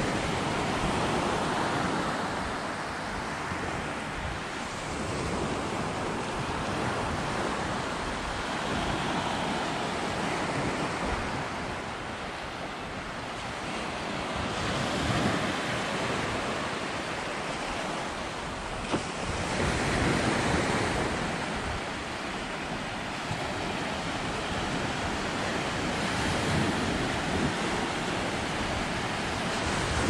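Small sea waves breaking and washing up a sandy beach, the surf swelling louder and easing off every few seconds.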